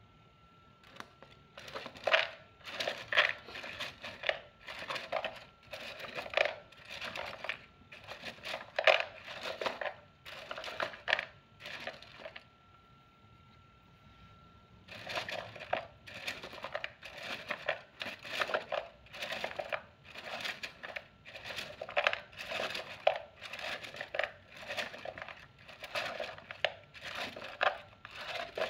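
Wooden fortune sticks clattering in their cylinder as it is shaken to draw a fortune stick: a fast, uneven rattle in two long runs, with a pause of a few seconds in the middle.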